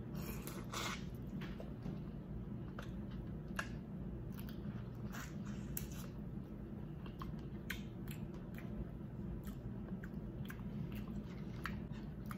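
A person chewing crab meat close to the microphone: irregular short wet clicks and smacks of the mouth, over a steady low hum.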